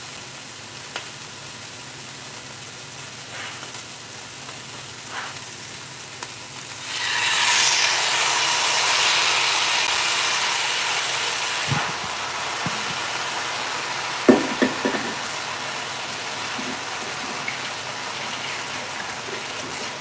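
Diced chicken and peppers frying in a large skillet. The sizzle is steady, jumps sharply louder about seven seconds in and then slowly eases, with a few light clicks and knocks of a utensil on the pan.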